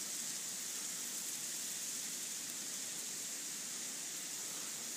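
Wind gusting through bare, ice-glazed tree branches as the ice melts, giving a steady hiss that sounds like frying eggs or rustling leaves.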